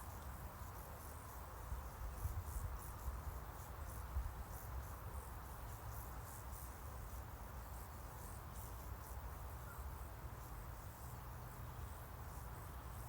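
Faint outdoor ambience: insects, likely crickets, chirping in short high-pitched pulses over a low steady rumble.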